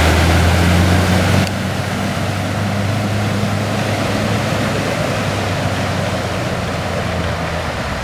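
Off-road 4x4's engine running at steady revs under a broad rushing noise. The engine is louder for about the first second and a half, then carries on steadily a little quieter.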